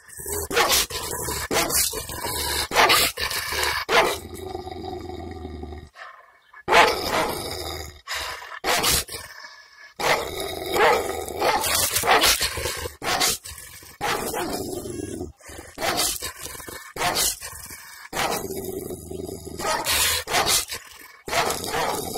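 A Kangal dog barking repeatedly in bouts close to the microphone, an angry, warning bark.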